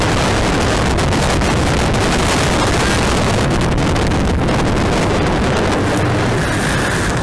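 Loud, steady rush of wind on the microphone of a phone aboard a speedboat running fast, mixed with the noise of the boat and its engine.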